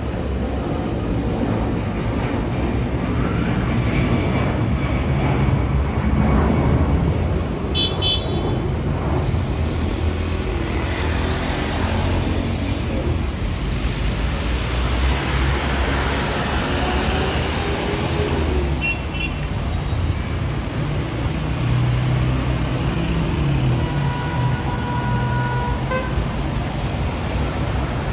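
Steady low rumble of an Airbus A330-200F freighter's jet engines as it climbs away overhead, mixed with street traffic. A few short horn beeps sound, the longest a held two-note toot near the end.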